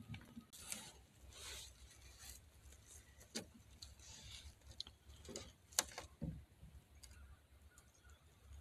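Quiet woodland with a low rumble and scattered faint rustles and clicks, the sharpest click about six seconds in.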